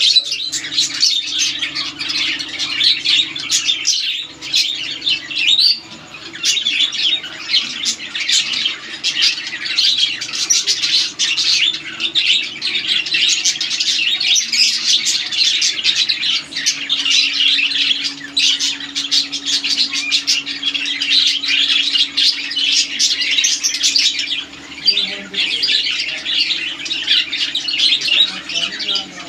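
A flock of caged lovebirds chattering: a dense, continuous chorus of high-pitched chirps and squawks, with a steady low hum underneath.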